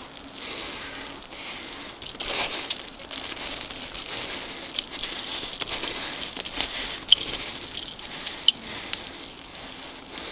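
Mountain bike rolling fast along a dirt singletrack strewn with dry leaves: steady crackling and hiss from the tyres on dirt and leaves, with several sharp clicks and rattles from the bike over the bumps.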